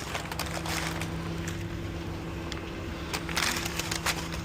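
Steady low machine hum, like an engine running, with scattered clicks and knocks of work and a brief rustle or scrape about three and a half seconds in.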